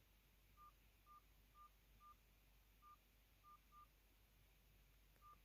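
Mobistel EL420 Dual mobile phone's keypad beeping as its buttons are pressed to scroll through the menus: eight short, faint beeps, all at one pitch, irregularly spaced, the first four about half a second apart.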